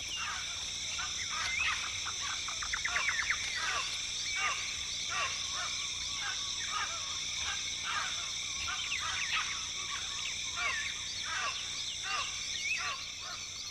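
Rainforest ambience: a steady, high insect drone with many short chirping and whistling calls scattered throughout.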